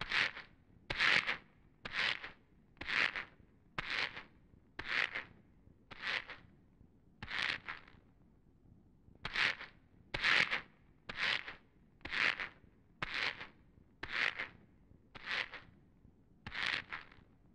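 A man pacing slowly, footsteps scuffing on a stone floor at about one step a second, with a pause of about two seconds midway.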